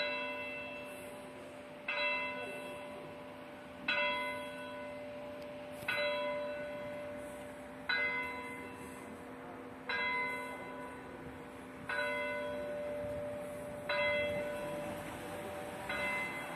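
A single church bell tolling, struck nine times at an even pace of about one strike every two seconds, each strike ringing and fading before the next.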